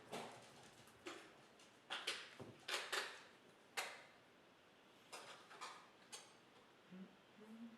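Objects being handled and set down on a table: about nine sharp, irregular knocks and clicks, the loudest around two to four seconds in.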